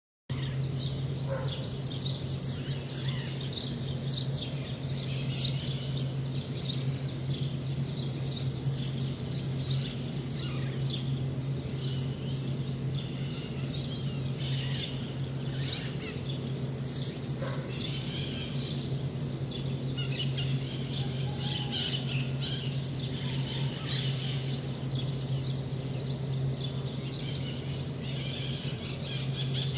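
Dawn chorus of many birds chirping and calling densely and continuously, over a steady low hum. It cuts in suddenly right at the start.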